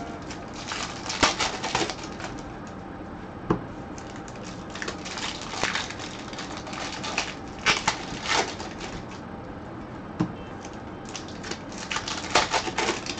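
Trading-card pack wrappers crinkling and tearing open, with cards slid and flicked against each other in gloved hands: irregular bursts of rustling with a couple of sharp clicks.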